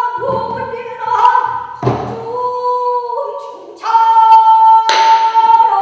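A pansori singer holding long, ornamented notes that slide between pitches, with a couple of low thuds from the accompanying buk barrel drum, the strongest about two seconds in.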